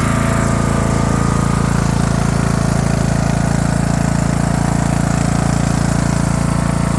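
Craftsman LT3000 lawn tractor engine running steadily.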